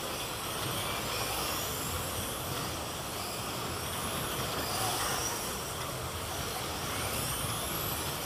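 Slot cars lapping the track: their small electric motors give a high whine that rises and falls over and over as the cars speed up and slow down round the circuit, over a steady hiss of cars running in the slots.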